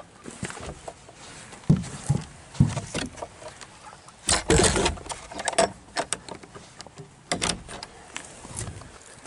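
Irregular knocks, thumps and rattles from a wooden pen door and its hook latch being handled, loudest in a dense clatter about four and a half seconds in.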